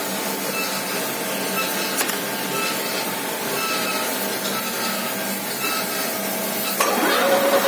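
Milling machine running steadily with a mechanical whir. Near the end a motor spins up in a quick rising whine, then holds a steady, louder tone.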